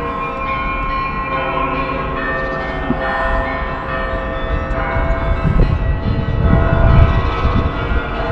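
Church bells ringing, many overlapping tones hanging on together, with heavy low rumbles from about five seconds in.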